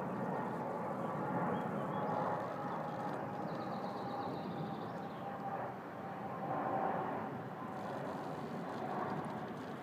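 Jet airliner flying low overhead: the steady noise of its engines, with a faint high whine about midway through.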